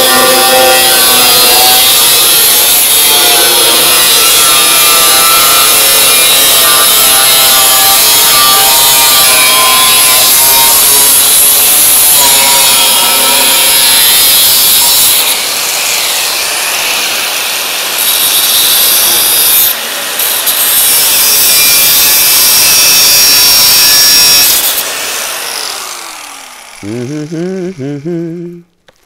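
Angle grinder cutting through the steel chassis frame of a Mercedes Sprinter, a loud, continuous grinding whine that wavers in pitch under load, with brief let-ups. About 25 seconds in it stops cutting and the disc spins down with a falling whine.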